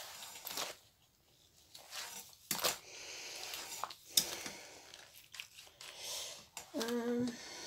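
Handling noise of gloved hands working a hot glue gun and a small metal embellishment: scattered clicks, taps and rustles, the sharpest about two and a half and four seconds in, with a brief pitched hum near the end.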